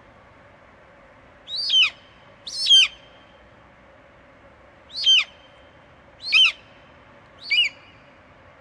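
A bird calling five times: short, sharp calls that each fall in pitch, over a steady background hiss.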